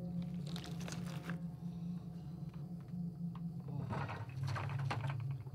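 Wet crunching and tearing of a man biting into a raw bird, in short bouts about a second in and again near the end, over a steady low hum.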